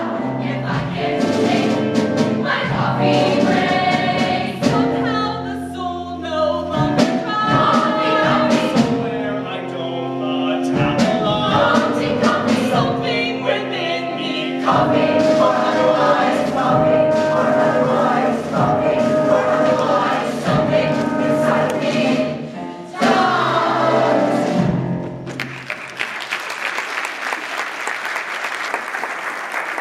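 Large ensemble cast singing a musical-theatre chorus number with instrumental accompaniment, ending on a loud final chord about 23 seconds in that fades out over a couple of seconds. Audience applause follows.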